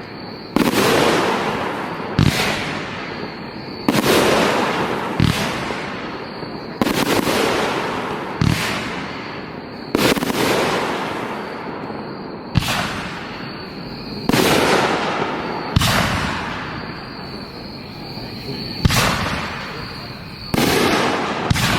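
Aerial fireworks show: about a dozen sharp bangs, one every one to three seconds, each trailing off over a second or two before the next.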